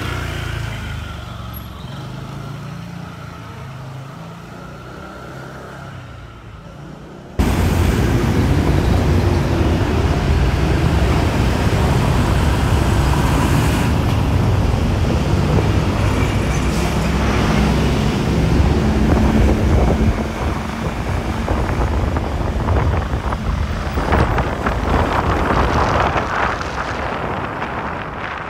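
Riding pillion on a motorbike taxi through traffic: wind rushing on the microphone over the motorbike's running engine and the surrounding traffic, loud and steady. This starts suddenly about a quarter of the way in, after quieter street sound with a low engine hum.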